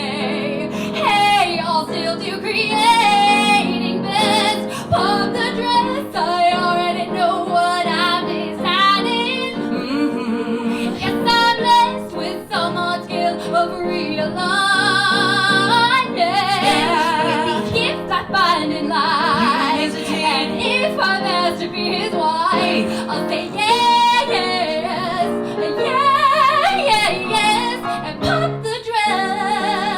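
A woman singing a musical-theatre song with instrumental accompaniment, holding long notes that waver in pitch.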